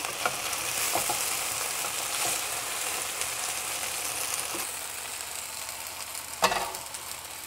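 Okra sizzling in hot oil in a stainless steel frying pan while it is stirred with a wooden spatula, with a few light taps. A sharper knock comes about six and a half seconds in.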